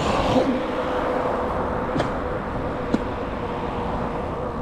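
Steady street traffic noise with a constant hum, and two sharp clicks about two and three seconds in.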